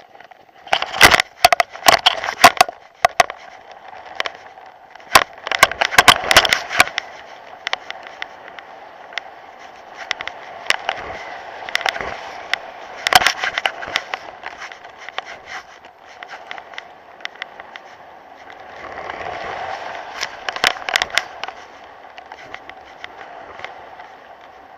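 Camera mounted on a flying stunt kite rattling and knocking against the kite's frame, in clusters of sharp clicks and crackles over a steady wash of wind noise.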